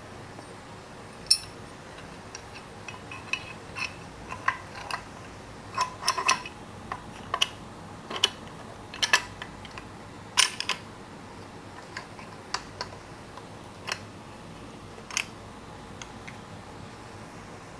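Metal tools and engine parts clicking and clinking at irregular intervals, some with a short ring, as a locking tool is fitted to a BMW N20 engine during timing chain work.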